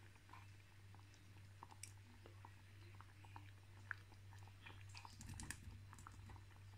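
Very faint: a steady low hum with scattered soft pops and clicks from a pot of thick coconut-milk stew simmering. The clicks come thicker about five seconds in.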